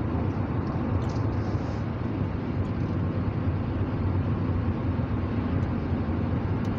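Steady road noise inside a moving car's cabin: an even low drone of the car running down the road.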